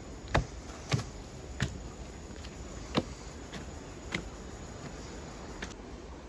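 Footsteps climbing wooden plank steps: a string of sharp footfalls at uneven spacing, some close together and some a second or more apart.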